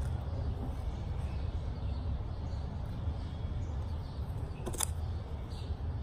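Soft handling sounds of hand sewing, with needle and thread being worked through a foam scrubber sleeve, over a steady low background rumble. A single sharp click comes near the end.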